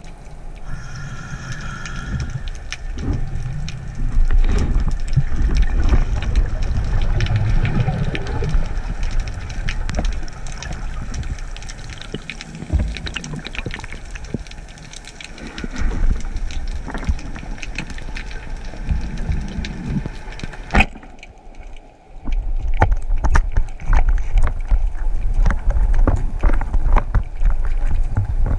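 Underwater noise from a diving camera: a low rumbling wash of water movement with scattered sharp clicks and knocks. One sharp click comes about 21 seconds in, followed by a brief drop before the rumble and clicking resume.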